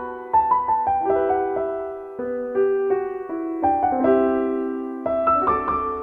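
Background piano music: notes and chords struck in a slow melody, each left to ring and fade.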